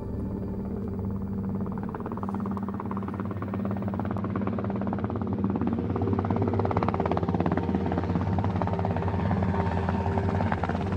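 Fast rhythmic chop of military helicopter rotors, growing slowly louder, over a low, steady droning music bed.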